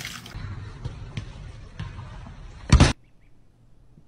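Liquid poured from a paper cup into a bottle, with handling noise, then one short, loud thump about three seconds in.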